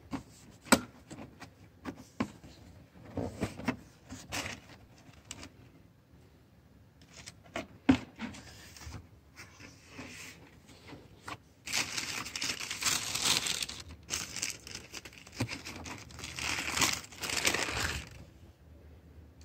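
Cardboard shoebox handled and its lid lifted, with a couple of sharp knocks, then tissue paper inside rustling and crinkling loudly through most of the second half as it is folded back from the shoes.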